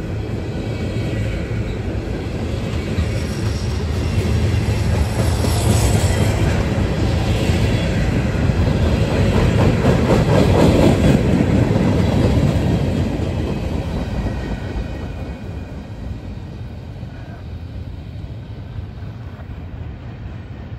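Freight cars of a CSX manifest train, covered hoppers and gondolas, rolling past at close range, their steel wheels running on the rails. The sound is loudest about halfway through and fades over the last several seconds as the end of the train passes and moves away.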